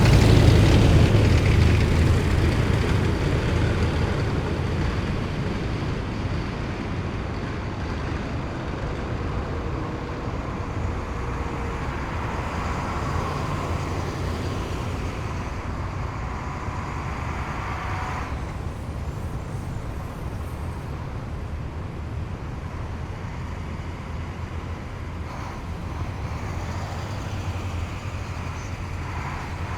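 Heavy military vehicle's engine passing close and fading away over the first few seconds, followed by a steady, lower engine rumble from the column of military vehicles further off.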